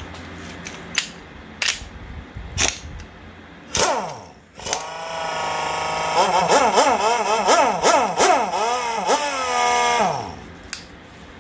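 Pneumatic impact wrench taking off a golf cart wheel's lug nuts: a short burst about four seconds in, then a longer run of about five seconds with the pitch wavering, winding down near the end. A few sharp clicks come before it.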